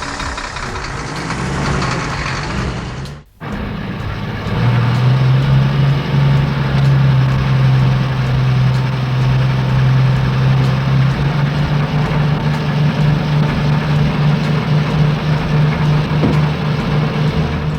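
Cement mixer truck engine sound effect running, cut off briefly about three seconds in, then a steady low idling hum.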